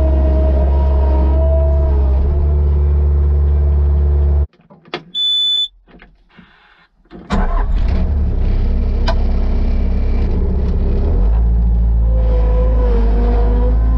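Loader's engine running steadily with a low drone. About four and a half seconds in the sound breaks off, a short high electronic beep sounds in the gap, and the engine is running again from about seven seconds.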